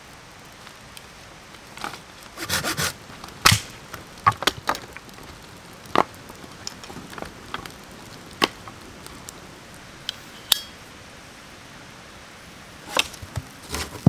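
Sharp, irregular knocks and cracks of a knife blade striking and splitting dry wood, clustered at first and then single knocks a second or two apart, with another flurry near the end.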